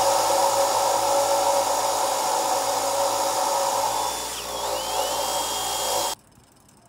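Brass wire wheel on a bench grinder scrubbing carbon off a Toyota 1FZ-FE engine valve that is spun in a cordless drill: a steady whirring hiss over a motor hum. It cuts off suddenly near the end.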